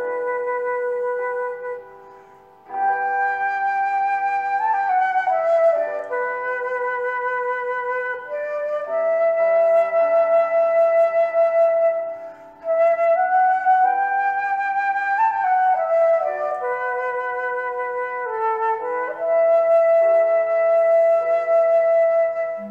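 Instrumental background music: a slow melody of long held notes. It breaks off briefly about two seconds in and again around twelve seconds.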